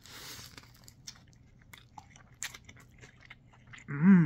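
A person biting into a Whopper burger with lettuce, a short crunchy rustle, then chewing with small wet mouth clicks. Near the end a short, loud hummed vocal sound from the eater.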